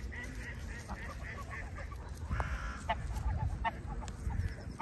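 Waterfowl calling: runs of short, repeated calls, with a steady low rumble underneath.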